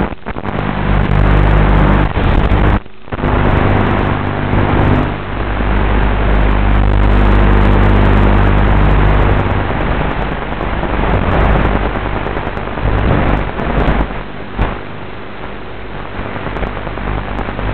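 Small FPV quadcopter's electric motors and propellers whining, with wind noise, heard over a narrow-band audio feed; the sound cuts out briefly about three seconds in.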